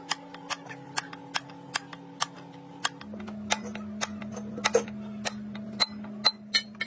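Hammer blows on a steel drift punch held against the bearing of a large gear, driving the bearing: sharp metallic clinks about two a second, a little faster and uneven near the end.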